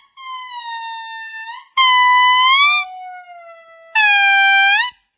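A series of long, pitched animal calls: four clear, drawn-out notes of about a second each, most bending upward at the end, with short gaps between them.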